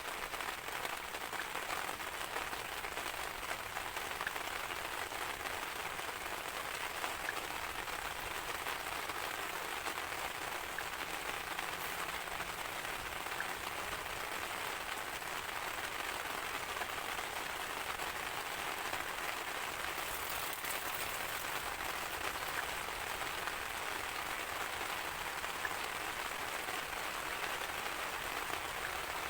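Steady rain falling, an even hiss of many small drops with no thunder.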